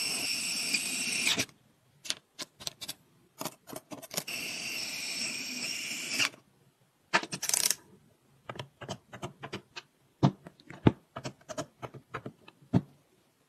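Electric precision screwdriver whirring in two bursts of about two seconds and a short third, driving tiny screws into a miniature metal V8 engine model. Between and after the runs come many small sharp metal clicks and taps of screws and parts.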